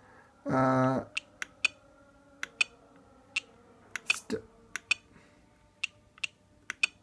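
Small plastic scroll-wheel button on a battery charger clicking, about fifteen sharp clicks at an uneven pace as it is rolled and pressed through a settings menu. A short hummed 'mm' from a man comes about half a second in.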